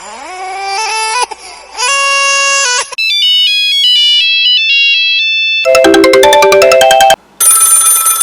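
A string of old mobile phone ringtones played back to back, each cut off abruptly after a second or two. About three seconds in comes a high, beeping single-line melody lasting a couple of seconds, and after it come fuller tunes with several notes at once.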